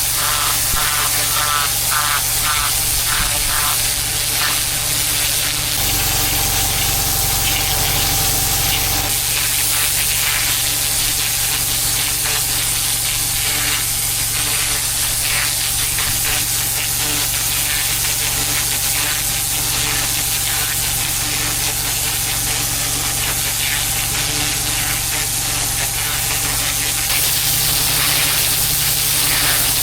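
Pressure washer jet spraying a brick driveway: a steady loud hiss of water hitting the paving over the low, even hum of the machine's motor and pump.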